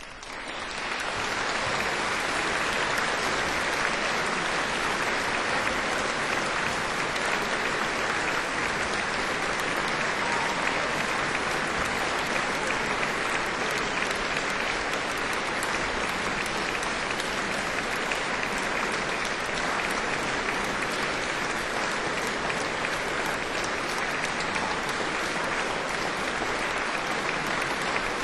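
Concert-hall audience applauding: the clapping starts suddenly, builds to full strength within about two seconds, then stays steady.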